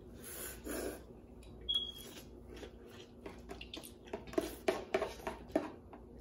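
Spicy noodles being eaten with metal forks from plastic containers. Two short breathy slurps near the start, then a run of sharp clicks and taps of the forks against the plastic.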